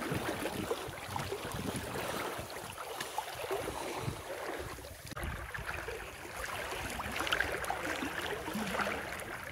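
Flooded river water sloshing and swirling around a person wading waist-deep against a strong current, an irregular splashy rush.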